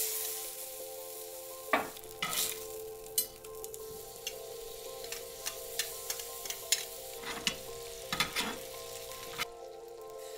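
Steaks sizzling steadily as they sear in butter in a hot skillet, with a string of short clinks and scrapes from tongs and a spoon against the pan.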